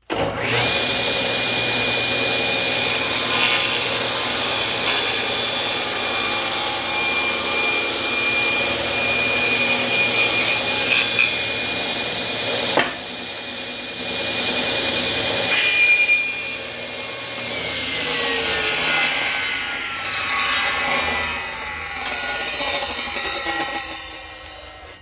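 Table saw cutting a hardwood wedge from a scrap board, the blade whining steadily through the wood. A sharp click comes about halfway through. After about 16 s the pitch falls and the sound fades as the blade spins down.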